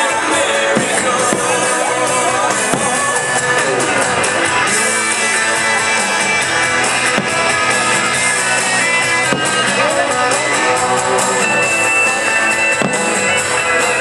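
Loud music with guitar and drums, playing without a break.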